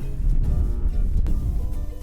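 Background acoustic guitar music over a loud low rumble.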